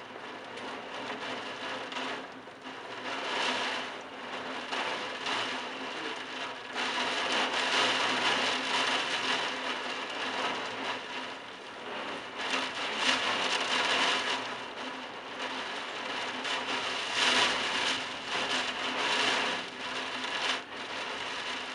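Heavy wind-driven rain of a thunderstorm pouring onto roof tiles, a dense steady hiss that swells and eases several times with the gusts.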